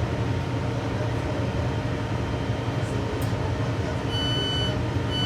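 A steady low rumble inside a Class 166 diesel multiple unit, then about four seconds in the door-opening tones begin: high beeps, the Class 158-style tone, sounding twice in a row. The tones signal the doors being released at a station stop.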